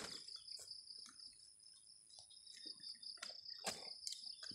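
Steady, high-pitched buzz of insects, with a few short clicks and knocks of cut sugarcane pieces being handled; the sharpest knock comes a little after three and a half seconds in.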